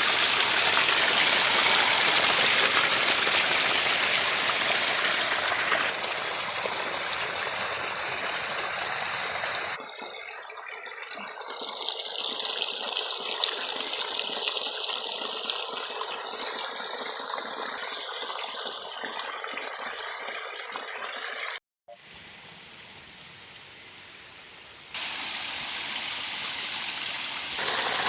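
Rainwater running and gushing out between rocks and the gaps of a stone wall, seepage after heavy rain. It is a steady rush that changes abruptly several times, with a momentary dropout a little past two-thirds of the way through.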